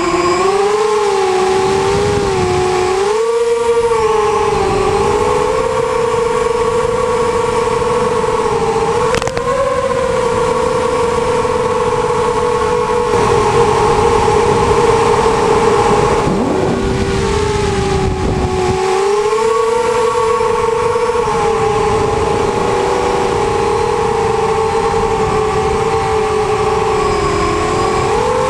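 FPV racing quadcopter's electric motors and propellers whining steadily, the pitch rising and dipping with the throttle. The tone shifts abruptly about halfway through.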